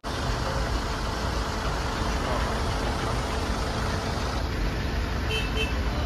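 Road traffic noise from a jam of cars and trucks, a steady rumble of engines at a standstill. A brief double beep comes near the end.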